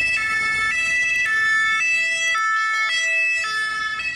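French ambulance's two-tone siren, switching between a high and a low note about every half second.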